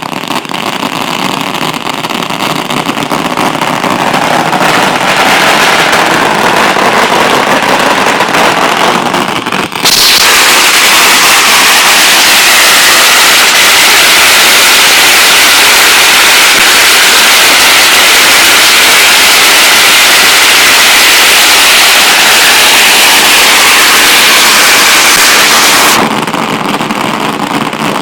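A long string of firecrackers going off as a continuous, rapid crackle. About ten seconds in it suddenly becomes much louder and denser, then drops back abruptly near the end.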